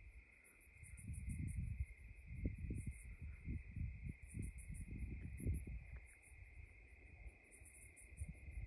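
Crickets and other night insects chirring steadily, with a low, irregular rumble that swells and fades underneath.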